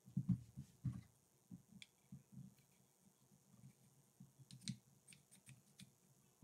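Wooden puzzle pieces being handled and slotted together: soft, irregular knocks of wood on a wooden tabletop and a few light, sharp clicks of wood against wood as the three-part wooden knot is assembled.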